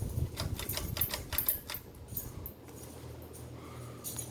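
A quick run of sharp clicks and light rattles, like small hard parts being handled. About two and a half seconds in, they give way to a steady low hum.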